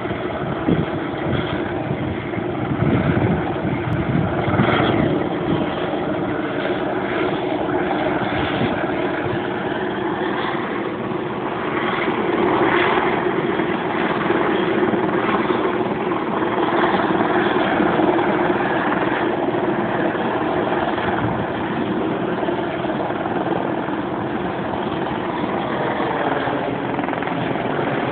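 Police helicopter flying overhead: the steady drone of its rotor and engine, swelling slightly in loudness at times.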